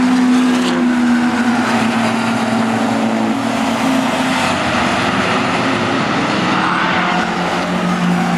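A pack of racing touring cars passing through a corner, several engines running hard at once with their pitch rising and falling as the drivers lift and accelerate.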